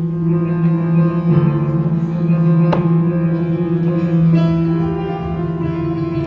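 Instrumental music played on plucked string instruments, with a low note held steadily underneath.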